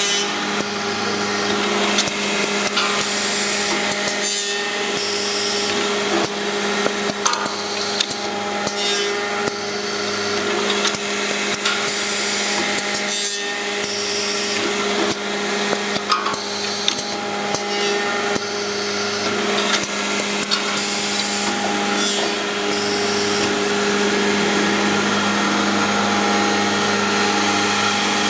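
Cross-milling machine running, its cutters working the workpiece: a steady motor hum with short bursts of high-pitched rushing noise that come and go every second or two.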